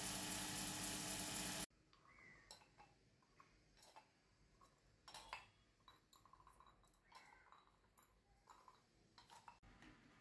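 Metal-spinning lathe running with a steady machine noise that cuts off suddenly a little under two seconds in. After that, quiet light clinks and taps of thin silver cup blanks being handled and set against the lathe's steel parts.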